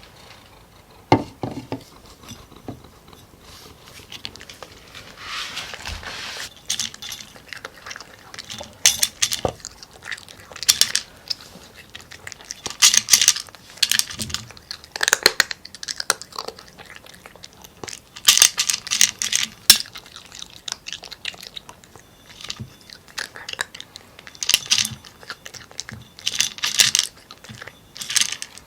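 A cat crunching dry kibble (Purina Pro Plan LiveClear), in bouts of crisp chewing every couple of seconds with short pauses between.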